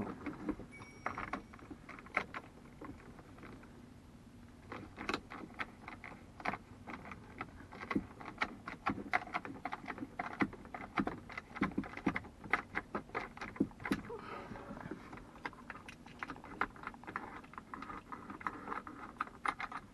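Irregular small clicks, taps and light rattles of wires and a plastic mounting bracket being handled as a CB radio is fitted into an overhead mount. The clicks come thickest from about a quarter of the way in to near the end.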